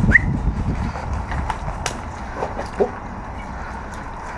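Footsteps and low knocks, thickest in the first second, with one sharp click about two seconds in.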